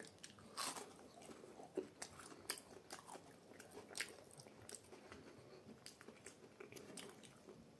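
Quiet chewing of a crunchy breaded fried snack: a string of faint crackles and clicks as the crust is bitten and chewed.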